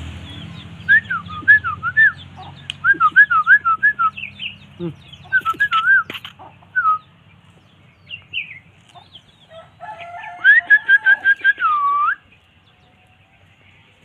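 Short whistled notes sweeping up and down, in quick groups of three or four, with a couple of sharp knocks partway through; a second quick run of notes near the end closes on one longer swooping whistle.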